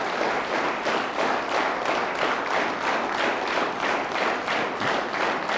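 Studio audience applauding, the clapping falling into a steady rhythm of about three claps a second.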